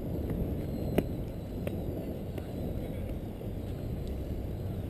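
Bicycle riding along a paved path, heard through a bike-mounted GoPro: a steady low rumble of tyres and wind, with one sharp click about a second in and a few lighter ticks, likely from the bike rattling over the surface.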